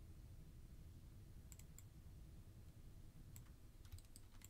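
Faint computer mouse clicks, a few of them in quick pairs, over near-silent room tone.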